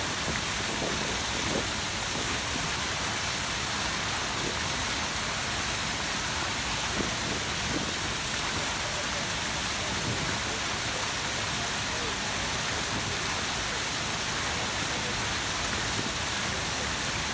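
Grand Cascade fountains running: a steady rush of water from the many jets, led by the tall Samson Fountain jet, spraying and splashing down into the pool without a break.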